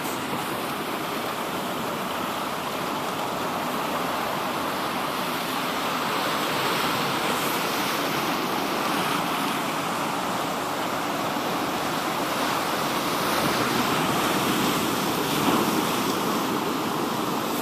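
Sea surf washing onto the shore: a steady rushing noise that swells a little now and then.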